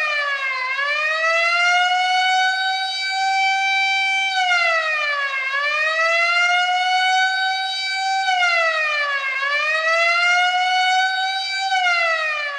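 Prison alarm siren wailing: a loud tone holds high, swoops down and climbs back up, repeating about every four seconds, and starts to fall away again at the very end.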